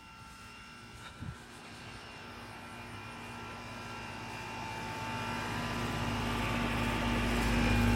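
2004 Goodman 2-ton straight-cool central air-conditioner condensing unit running in cooling mode: a steady compressor hum under the rush of the condenser fan. It grows steadily louder as it is approached, with a brief knock about a second in.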